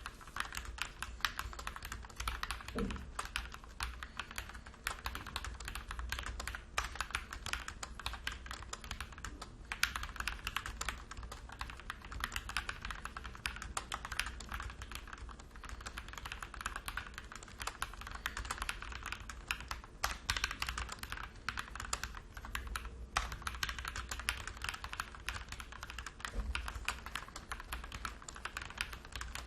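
Stock MIIIW ART Series 68-key hot-swap mechanical keyboard with Gateron Yellow Pro linear switches being typed on fast and without pauses: a dense run of key clicks.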